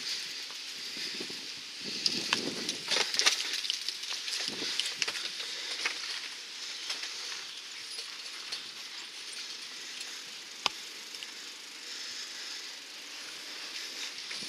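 Bicycle being ridden: a steady hiss of tyres and passing air with small rattles and clicks from the bike. There is a burst of clattering about two seconds in and a single sharp click near the end.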